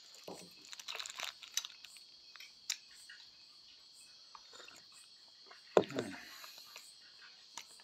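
Crickets chirring steadily in the background while a man bites and chews with crisp crunching and crinkling of a plastic wrapper in the first two seconds. A little under six seconds in, a glass is set down on the table with a sharp knock.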